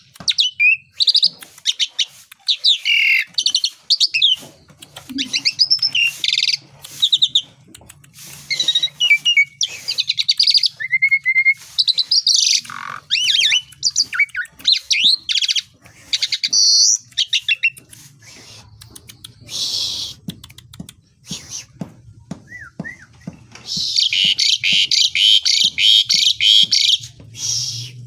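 Jalak suren (pied starling) singing a long, varied song of whistles, sweeping chirps and rapid trills, with a loud stretch of fast chatter near the end.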